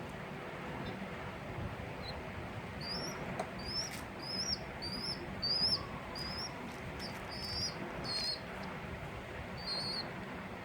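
A newborn bird's begging chirps: a run of short, high chirps, each rising then dipping, about two a second from about three seconds in, then a few more spread out toward the end, over a steady hiss.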